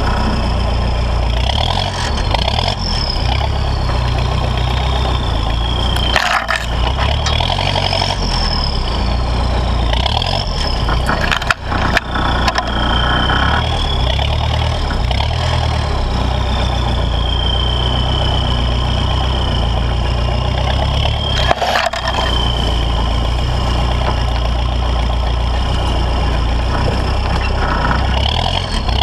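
Toyota Land Cruiser J40's 3.0-litre turbo-diesel engine pulling steadily under load, with a high turbo whistle that rises and falls with the throttle. The engine note drops off briefly twice, and a sharp knock sounds near the middle.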